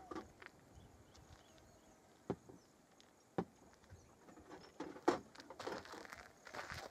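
A few faint, sharp clicks from a tranquilizer dart rifle being handled and readied at its breech, spread over a few seconds, with soft rustling between them.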